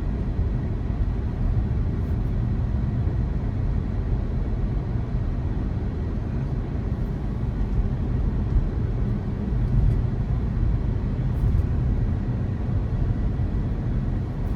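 Steady low road and tyre rumble heard from inside the cabin of a Tesla Model 3 on the move, with no engine note from the electric drivetrain.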